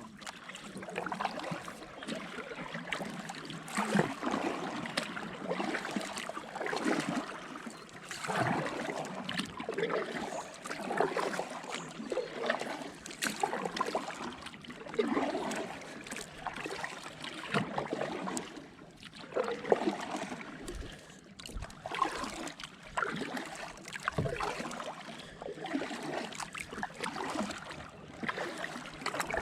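Kayak paddle strokes in the water, a splash and trickle with each stroke, about one every one and a half to two seconds.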